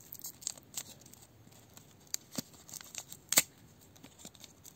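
Small wet-wipe sachet from a screen-protector kit being crinkled and torn open by hand: scattered crinkles and sharp ticks, the loudest about three and a half seconds in.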